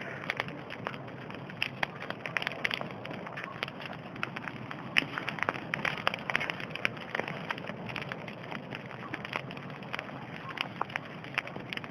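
Bonfire crackling: irregular sharp pops and snaps over a steady hiss of burning wood.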